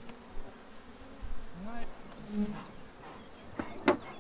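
Honeybees buzzing around an open hive: a low steady hum, with single bees passing close, their buzz bending up in pitch, about a second and a half and two and a half seconds in. A sharp click comes near the end.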